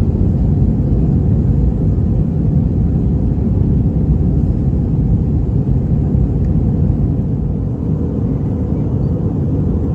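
Steady cabin noise of an Airbus A320 in flight: an even, constant low rumble of engines and airflow.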